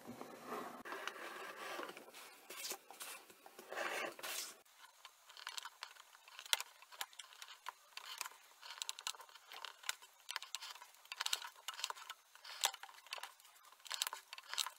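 Hobby knife blade cutting through thin cereal-box card against a cutting mat: a run of short, irregular scratching strokes as the blade follows the traced outline.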